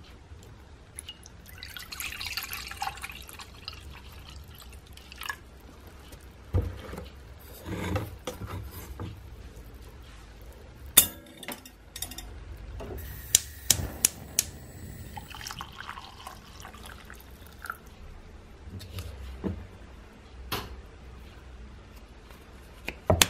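Oat milk poured from a carton into a small metal milk pot, followed by clinks and knocks of the pot and a mug on the kitchen surfaces. Midway comes a quick run of sharp clicks, then another soft stretch of pouring.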